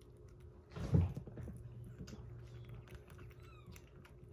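A kitten eating soft weaning food from a glass bowl: small wet smacking and chewing clicks, with one dull thump about a second in.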